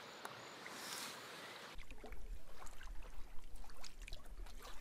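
Kayak being paddled on calm river water: faint splashes and drips from the paddle and water lapping at the hull. A low rumble comes in about two seconds in.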